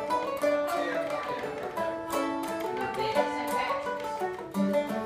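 Solo F-style mandolin picked with a flatpick, playing a melody of quick single notes with chords mixed in.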